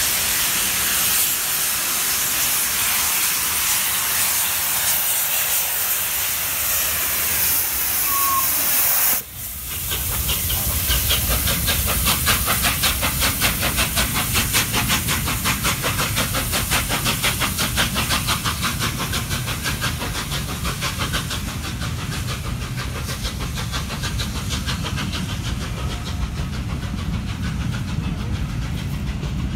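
Steam locomotive hauling a train at speed, with a loud, steady hiss of steam. After a cut about nine seconds in, the locomotive runs close past with rapid, evenly spaced beats over a low rumble, and its coaches follow.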